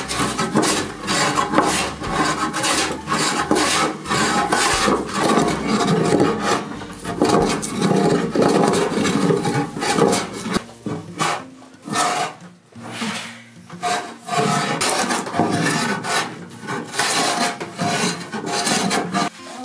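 Metal hand plane shaving a laminated poplar and red oak benchtop, pushed at an angle across the glued-up strips to flatten it: a rasping shave on each stroke, about one stroke a second.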